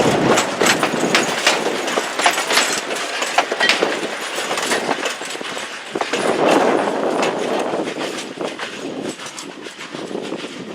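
Railway train rolling on jointed track, with a steady run of wheel clicks and clacks over the rail joints, easing off near the end.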